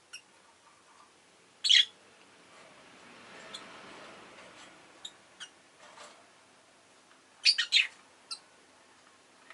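Rosy-faced lovebirds giving short, shrill chirps: one loud call about two seconds in, a quick run of three loud calls near the end, and softer single chirps between. A soft hiss swells and fades in the middle.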